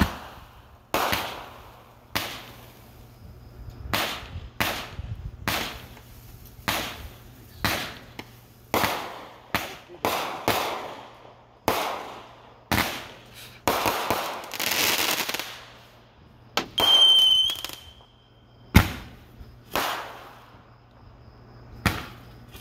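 Aerial fireworks going off: a string of sharp bangs about one a second, many trailing into crackle, with a dense crackling stretch in the middle. A shrill whistle of about a second follows, then a few more bangs.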